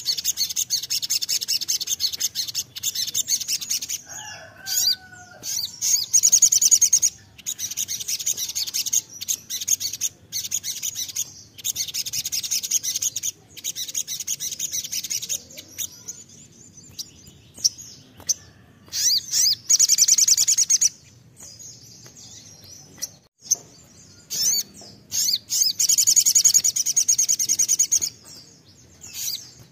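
Male olive-backed sunbird in full song: loud, rapid, high-pitched twittering trills in runs of one to three seconds, with short breaks and a longer pause about two-thirds of the way through.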